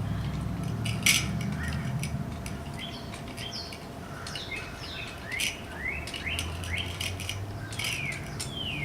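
Short, high, falling chirps come and go, with a few sharp metallic clinks from the jack and its extension bar being turned by hand, over a low steady rumble.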